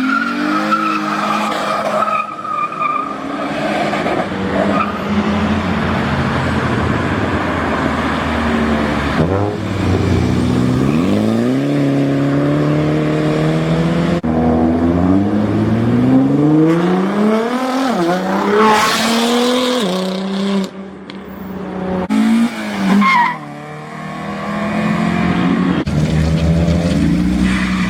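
Cars accelerating hard, engine notes climbing in pitch again and again as they rev up through the gears. Early on there is a stretch of tyre squeal from wheelspin.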